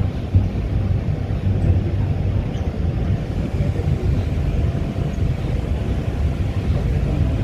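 Inside a moving MRT Yellow Line rubber-tyred monorail car: the steady low rumble of the train running, with a faint steady hum.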